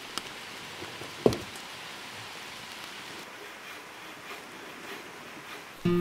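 Light rain falling on a lake's surface and shore: a steady, even hiss with scattered drop ticks, and one sharp, louder tap about a second in.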